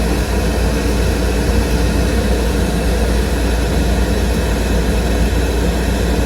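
Direct-fired gas makeup air heater running steadily in low fire: its blower and burner make a loud, even rumble over a constant low hum.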